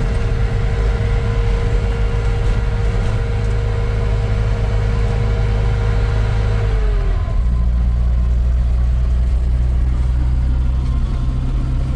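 Motor vehicle engine running steadily with a thin whine above it. About seven seconds in, the whine drops away and the engine settles into a lower, steady note.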